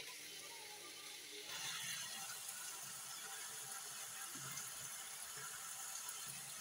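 Faint, steady hiss of tinda and tomato sabzi cooking in a kadhai over a low gas flame, growing slightly louder about a second and a half in. A single click at the very start.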